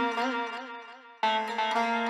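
Instrumental background music: held string notes with a slight wavering ornament, fading, then a new note struck a little over a second in.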